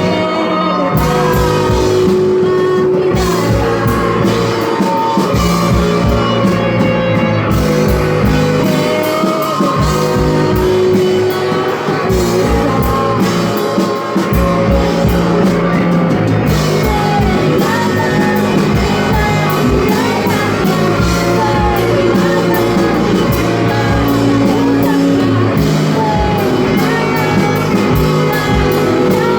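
Live band playing a rock song: a voice sings over guitar and drums with a steady beat.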